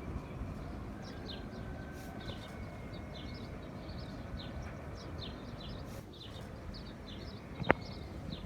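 Birds chirping repeatedly in short, high, downward-sliding notes over a steady low rumble, with one sharp click near the end.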